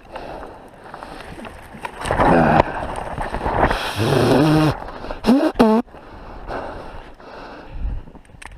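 Men's voices calling out without words: a held cry about four seconds in, then two short, sharply rising and falling yelps.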